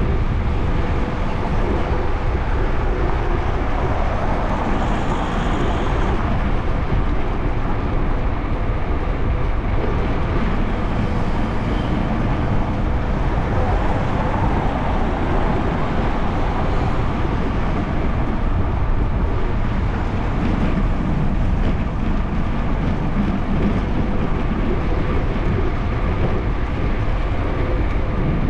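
Steady wind rushing over an action camera's microphone while riding a bicycle, mixed with tyre and road noise and a faint steady hum.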